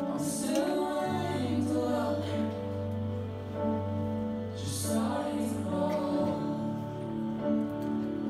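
Slow, tender music with a singing voice over sustained chords. A low held bass note comes in about a second in.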